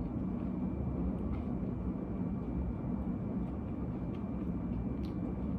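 Steady low room hum with a faint high whine running through it, and a couple of soft clicks.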